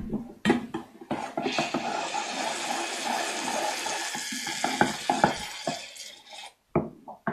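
Aerosol can of shaving foam hissing as foam is pressed out in one long squirt of about five seconds that cuts off near the end. A few short knocks come just before it.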